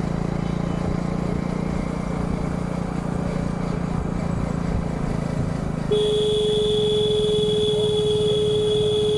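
Motor vehicle driving along a road, a steady engine hum with road and wind noise. About six seconds in, a steady high tone sets in abruptly and holds, like a vehicle horn pressed and kept down.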